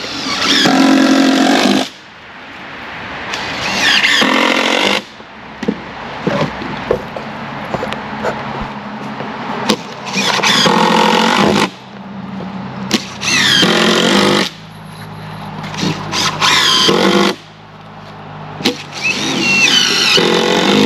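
A power tool run in short bursts of one to two seconds, about six times, each rising in loudness and stopping suddenly, with a squeal on each run.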